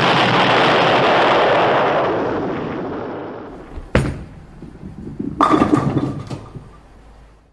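Sound effects of an animated channel intro: a loud rushing noise that fades away over about three seconds, then a single sharp bang about four seconds in, and a quick run of crackling bangs a second and a half later that dies away.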